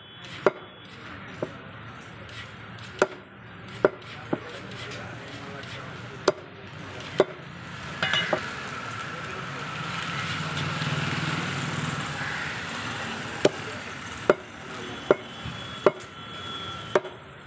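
A heavy cleaver chopping pigeon meat and bones on a wooden log block: about a dozen sharp chops at irregular intervals. The chops pause in the middle while a steady rumble of background noise swells, then they resume near the end.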